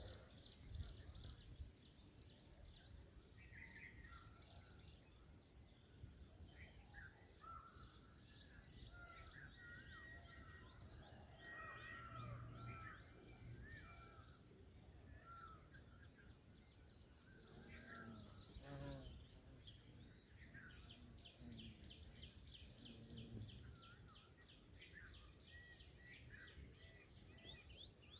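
Faint forest ambience: many small birds chirping and twittering over an insect's steady high trill, with one lower, falling call about two-thirds of the way through.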